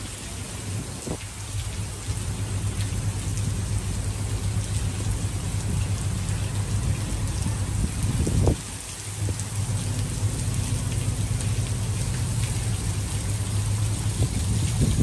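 Heavy rain pouring down in a thunderstorm, a dense even hiss over a steady low rumble. There is one brief louder surge about eight and a half seconds in.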